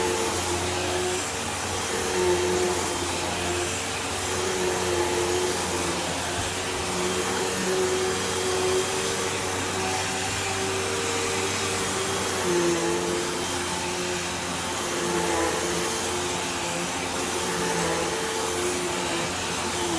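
Hoover Elite Rewind Plus upright vacuum cleaner running steadily: a motor hum over a loud rush of air, its pitch dipping slightly now and then as the load changes.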